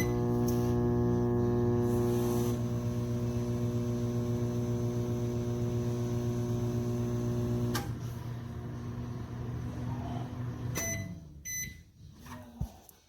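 A Black+Decker EM720CB7 700 W countertop microwave oven runs with a steady electrical hum that starts with a click. About two-thirds of the way through there is a click and the hum drops lower. It stops near the end and is followed by a couple of short beeps.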